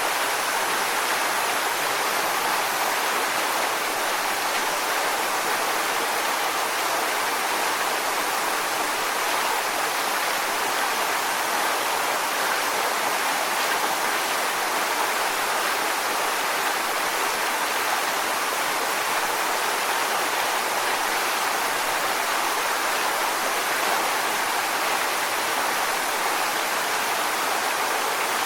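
Waterfall: water falling and splashing onto rocks in a steady, even rush.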